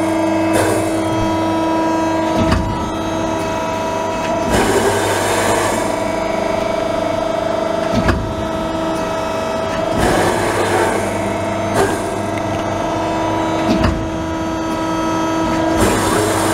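Amada Promecam CNC pressbrake running through its backgauge cycle: a steady machine hum with several fixed pitches, over which the backgauge axis motors whir in short bursts every couple of seconds as the gauge fingers move up and back. A few sharp clunks come as the gauge stops at each position.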